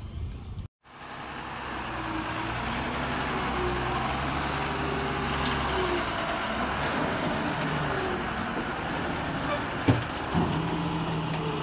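Heavy truck's engine running as it drives slowly onto a steel-plate weighbridge, starting just under a second in and carrying on steadily, with a sharp knock about ten seconds in.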